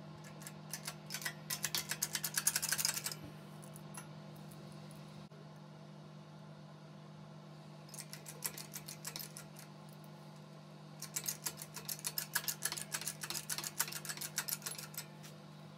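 Hydraulic press pressing a needle bearing out of a carbon pump vane: a steady low hum, with runs of rapid ticking about a second in, around eight seconds and again from about eleven to fifteen seconds.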